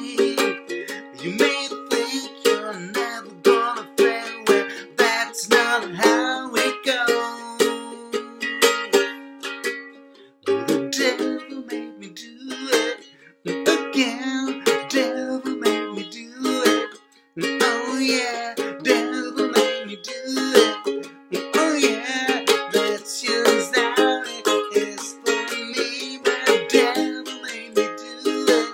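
A man singing to his own strummed ukulele, a steady rhythmic strum that breaks off briefly about ten seconds in and again near seventeen seconds.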